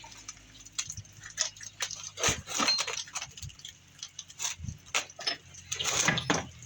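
Irregular clicks, taps and short scrapes of hand-handling small metal and wooden parts, some louder knocks about two and six seconds in, typical of fitting epoxied handle scales onto a knife blade and setting it in a vise.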